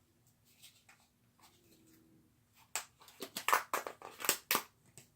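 Slime being stirred and squished in a bowl as the activator goes in. It is faint at first, then a quick run of sharp sticky clicks and squelches in the last couple of seconds.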